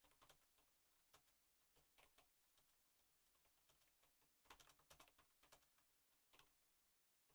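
Faint computer keyboard typing: uneven runs of key clicks, densest about four and a half seconds in, stopping shortly before the end.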